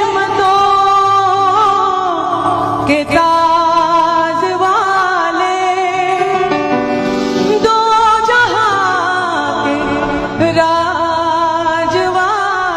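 A woman singing a devotional naat into a microphone, with long, ornamented held notes over steady instrumental accompaniment and a brief break about three seconds in.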